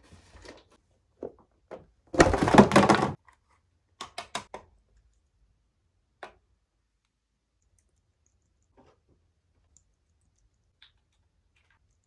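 Small objects being handled by hand: a loud rustling scrape about a second long, then a quick run of four or five clicks, a single click a little later, and a few faint ticks.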